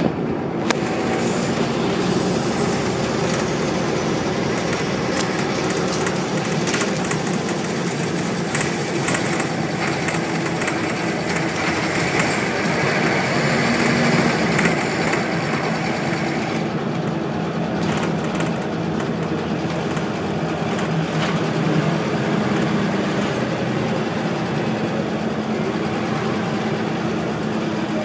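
Wright Solar-bodied Scania single-deck bus under way, heard from inside the passenger saloon: the diesel engine and drivetrain run steadily, with a higher whine swelling in the middle and scattered clicks and rattles from the interior.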